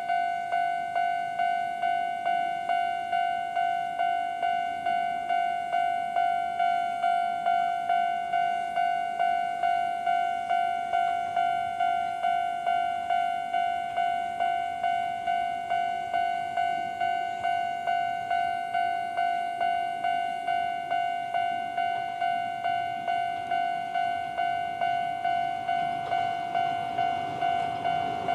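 Japanese level-crossing warning bell sounding its old-type standard electronic ding at a fast tempo, rapid evenly spaced dings that each die away. The rumble of an approaching electric train, a Chichibu Railway 7800-series set, rises under the bell near the end.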